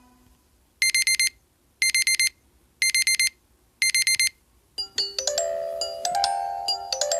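LG V20 phone alarm tone: four short bursts of rapid, high electronic beeping, about one burst a second. About five seconds in, the next alarm tone starts, a melody of ringing notes.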